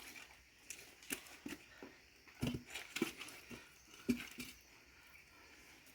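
Scattered light knocks and rustles of firewood being handled and set in place, a dozen or so irregular taps, the firmest about two and a half to four seconds in.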